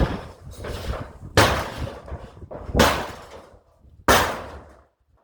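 Four heavy blows against the barn's wooden structure, evenly spaced about a second and a half apart, each a sharp crack that trails off briefly.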